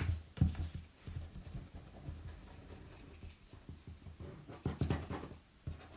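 Hands handling paper and card on a cutting mat, with paper sliding and rubbing and a few light taps, the loudest near the start and near the end.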